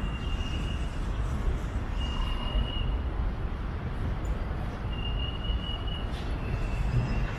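Street traffic ambience: a steady low rumble of vehicles. A thin, high, steady whistling tone about a second long comes back about five times over it.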